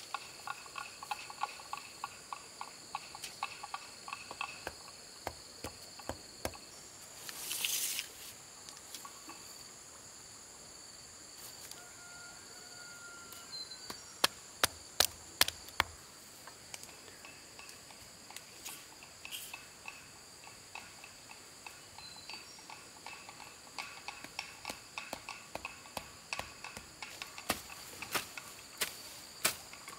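Steady high-pitched insect drone, with scattered sharp taps and knocks over it; several loud knocks come close together about halfway through, and a short scraping rush comes about a quarter of the way in.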